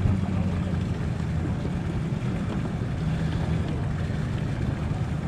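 Outboard motor idling, a steady low hum.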